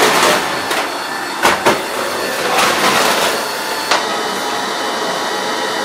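Wet/dry shop vacuum motor running steadily, with two sharp knocks about a second and a half in and another near four seconds.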